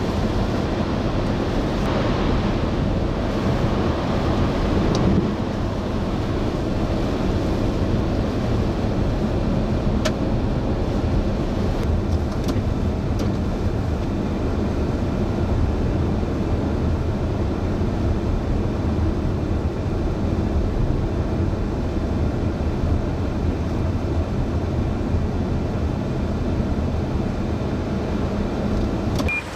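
Steady low rumble of a moving vehicle, even throughout.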